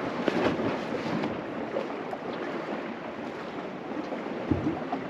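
Sea washing against a rocky shore, with wind blowing over the microphone. There are a few faint clicks in the first half-second, and a short low thump about four and a half seconds in.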